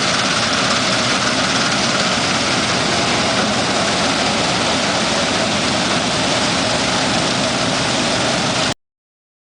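1960s Dania 900 self-propelled combine harvester running steadily at work, a loud, even mechanical din that cuts off suddenly near the end.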